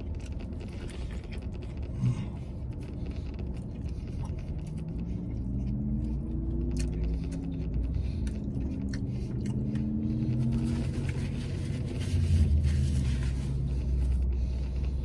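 Low vehicle engine rumble heard from inside a pickup truck's cab, the engine pitch shifting up and down through the middle and the rumble swelling louder near the end, with a few soft clicks.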